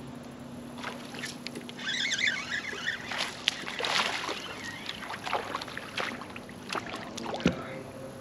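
A hooked fish splashing and thrashing at the surface beside a kayak as it is reeled in and swung out of the water, with irregular splashes and a few sharp knocks, the loudest about three and a half seconds in and again near the end.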